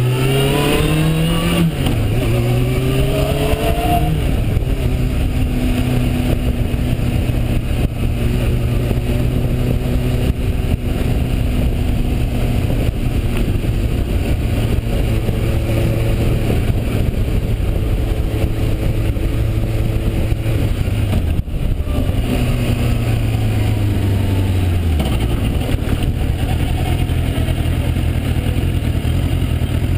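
Suzuki GSX-R750-based motorcycle engine accelerating hard, its note rising and breaking at a gearchange, then cruising at a steady pitch over wind noise. A little past two-thirds of the way through, the revs fall away and settle to a lower steady note as the bike slows.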